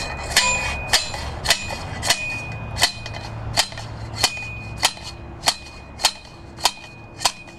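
A driver rod repeatedly striking the crossbar of a sign post's ground anchor, driving the stake into the ground: about a dozen sharp, evenly paced blows, roughly one every 0.6 s, each with a ringing tone.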